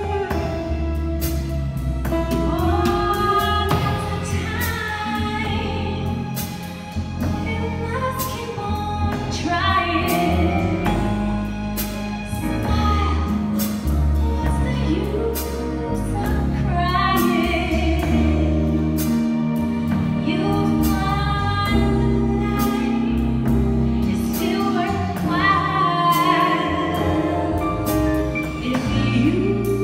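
Female soloist singing with a live band of keyboard, electric bass, drums and guitar: long sung phrases with vibrato over walking bass notes and steady drum and cymbal strikes.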